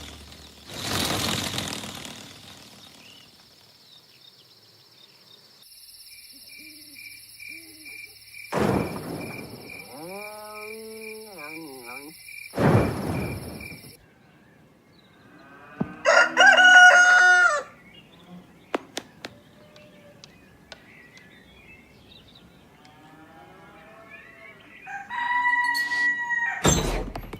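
A rooster crowing, loudest about halfway through and again near the end, mixed with cartoon sound effects: swooshes and a high steady tone.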